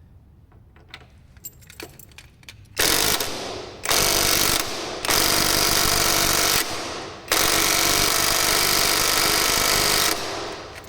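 Impact wrench running in four bursts, the last and longest about three seconds, each trailing off as the motor winds down, driving the rear shock bolt back in on a Honda Forza 300 scooter. A few light clicks come before the first burst.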